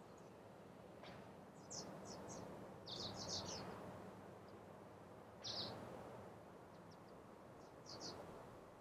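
A small bird chirping in four short phrases of quick high notes, over a faint rushing background that swells twice.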